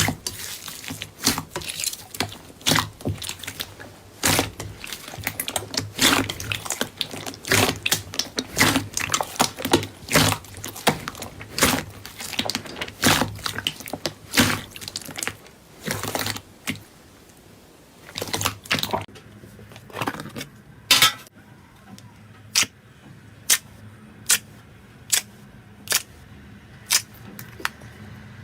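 Hands working a soft slime or pop-it toy, making rapid, crowded clicks and crackles. About two-thirds of the way through these thin out to single sharp pops, roughly one a second.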